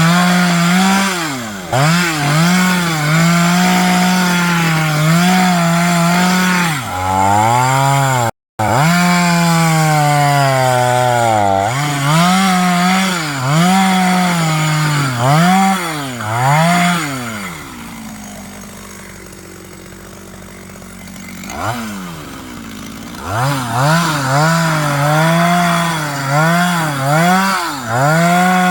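Stihl chainsaw cutting into a tree, its engine pitch repeatedly sagging and recovering as the chain bites into the wood. It breaks off for an instant about eight seconds in, drops to a quieter idle about two-thirds of the way through, then revs back up and cuts again.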